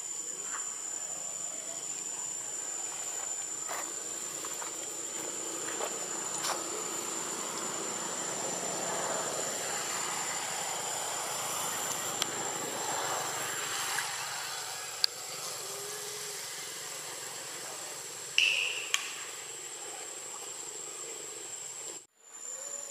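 Steady high-pitched drone of insects over outdoor ambience, with a few faint clicks and one short, sharp chirp about eighteen seconds in.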